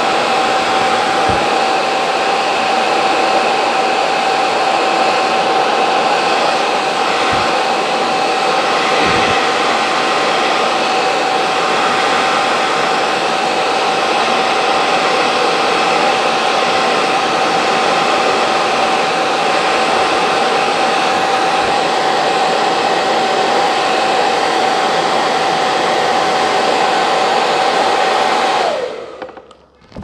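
Hand-held hair dryer running steadily, a loud rush of air with a steady motor whine, its nozzle pressed into a coiled bundle of damp cloth. Near the end it is switched off and winds down with a falling pitch.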